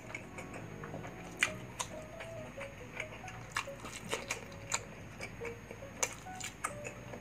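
Close-miked chewing and lip smacking while eating pork adobo by hand, a string of sharp wet clicks at irregular intervals, over faint background music.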